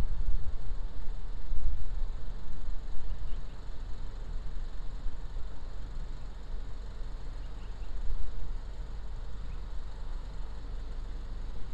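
Wind buffeting an outdoor microphone, a gusty low rumble that swells and fades, with a few faint bird chirps.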